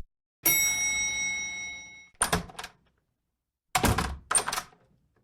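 Cartoon sound effects played one after another: a ringing metallic hit that fades over about a second and a half, then short knocks, two together and soon after another two or three.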